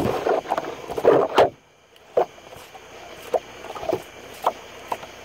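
Close handling noise from skinning a catfish by hand: irregular wet rustling and scraping for about a second and a half, a short lull, then scattered short clicks and knocks.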